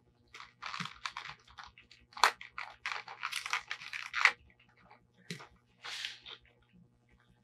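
Strong clear packing tape being pulled and peeled off a plastic toy playset, with irregular ripping and crinkling over the first four seconds. A couple of sharp plastic clicks come about two and four seconds in, and two shorter bursts follow later.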